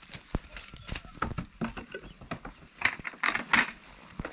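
A goat's hooves knock and scuff over leaf litter and onto a wooden milking stand as it climbs up. There is a short flurry of louder scraping about three seconds in.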